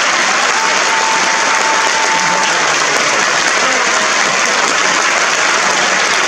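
Theatre audience applauding: dense, steady clapping from a large crowd.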